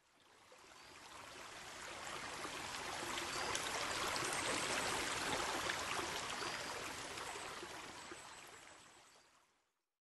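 Rushing, stream-like running-water sound that fades in from silence, swells to a peak in the middle and fades away about a second before the end.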